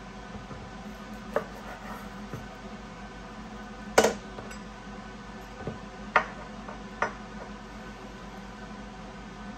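Chef's knife blade knocking on a wooden cutting board while raw chicken breast is cut into cubes: about five sharp knocks, the loudest about four seconds in, over a steady low hum.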